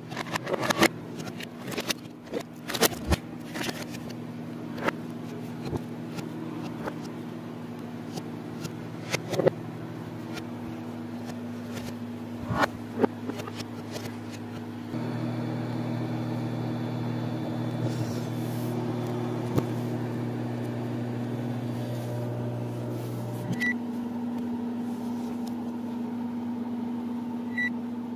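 A steady electrical hum runs throughout, changing pitch and level twice, under scattered knocks and clatters of a bowl and jars being handled. Two short high beeps from a microwave oven's keypad sound near the end.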